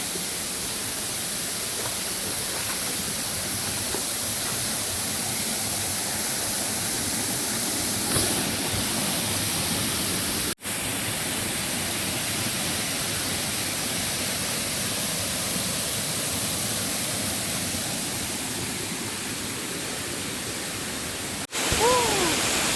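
Waterfall rushing and splashing in a steady, unbroken roar of falling water, cut off abruptly twice for an instant.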